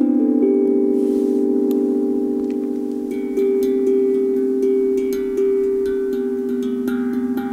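12-inch steel tongue drum tuned to A minor, its tongues struck one after another so the notes ring on and overlap. Played with mallets at first, then with the fingers from about three seconds in, with light taps between the notes.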